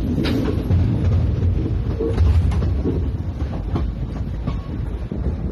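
Passenger train rolling slowly along the track: a steady low rumble of wheels on rail, broken by sharp clickety-clack knocks at uneven intervals as the wheels cross rail joints.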